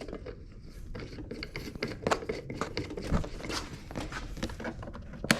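Handling noise: a string of light clicks, knocks and scrapes as things are moved about, with a sharper knock near the end.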